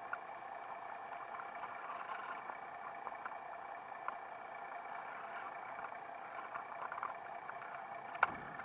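Steady, muffled drone recorded underwater, typical of a boat's engine carried through the water, with a few faint clicks and one sharper click shortly before the end.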